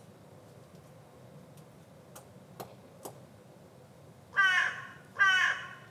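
Crow cawing twice near the end, two loud harsh caws under a second apart, over a faint steady low rumble of distant aircraft.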